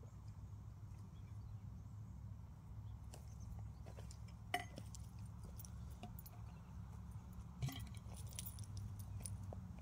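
Faint low rumble with a few small metallic-sounding clinks and clicks scattered through it, the loudest about four and a half seconds in and another near eight seconds.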